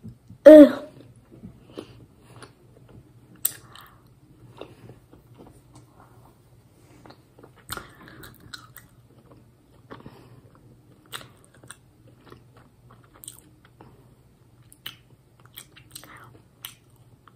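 Close-up chewing of a gummy jujube sweet: soft wet mouth clicks and smacks scattered through. About half a second in there is a short voiced 'mm'-like sound from the eater, the loudest thing here, and a faint steady low hum lies underneath.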